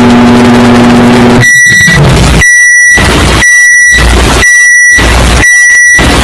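Microwave oven running with a steady hum, then its beeper sounding five times at about one beep a second, with low rumbling between the beeps, cut into a musical rhythm.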